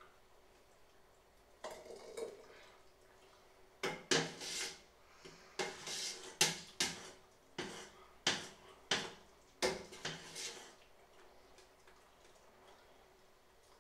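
Metal ladle knocking and scraping against the inside of a large stainless steel pot as it is stirred. There is a short clatter about two seconds in, then about a dozen sharp clinks between about four and ten seconds in.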